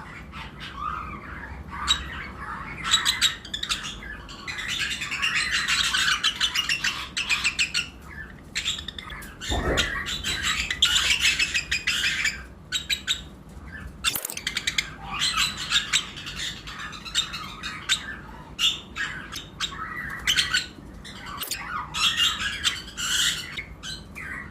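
A colony of lovebirds chirping and chattering over one another in a dense, continuous stream of high chirps. There is a brief low thump about ten seconds in.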